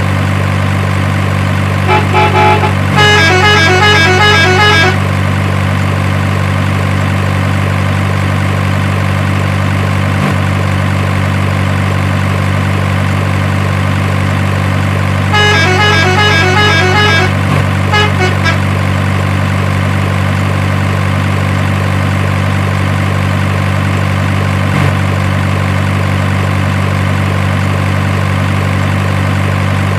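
Truck engine idling with a steady low hum throughout. About two seconds in, and again at about fifteen seconds, a multi-tone horn toots a short stepping tune of quick alternating notes.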